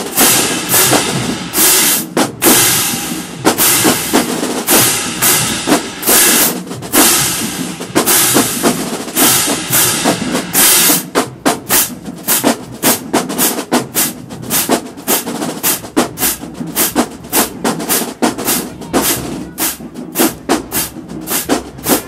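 HBCU marching band drumline playing a cadence on snare and bass drums. About halfway through, the hits settle into a quick, even beat.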